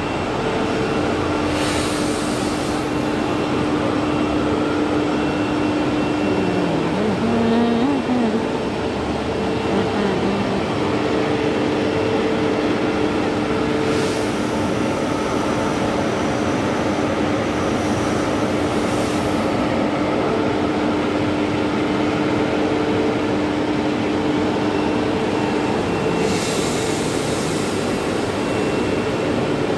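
Battenfeld corrugated HDPE pipe extrusion line running: a steady machine noise from the corrugator's travelling mould blocks and drives, with a steady hum underneath. A few short hisses break in, the longest near the end.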